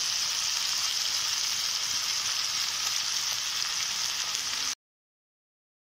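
Small whole fish coated in spice paste sizzling steadily as they fry in oil in an iron kadhai, a bright, even hiss that cuts off abruptly about a second before the end.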